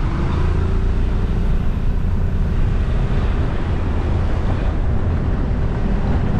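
Motorcycle engine running steadily while riding at an even speed, a constant low rumble with a faint steady tone, mixed with wind buffeting the microphone.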